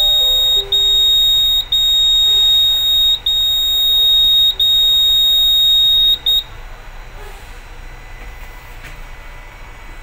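Fire alarm control panel's buzzer sounding one steady high-pitched tone, broken by a few brief dropouts, signalling a smoke detector alarm. It cuts off about six seconds in as the panel is reset, leaving quieter room noise.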